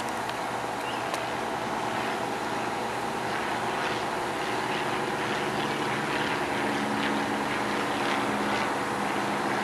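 Fire engine's diesel engine running steadily, slowly getting a little louder.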